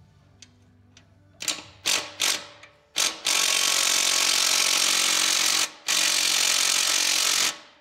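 A 3/8-inch-drive impact wrench hammering on a pressure washer pump's mounting bolt. It gives a few short trigger bursts, then two long runs of hammering with a brief pause between them. The bolt does not break loose.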